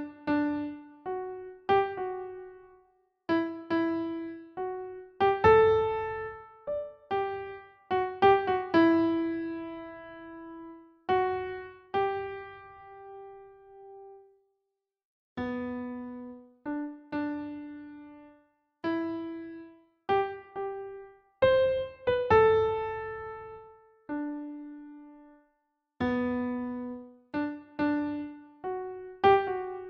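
A slow, gentle piano melody of single notes and short phrases. Each note rings out and fades, with brief pauses between phrases.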